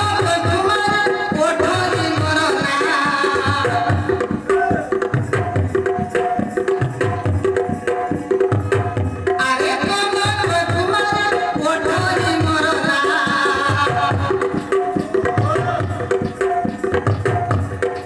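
Loud Indian dance music: a steady, repeating drum beat under a winding melody line.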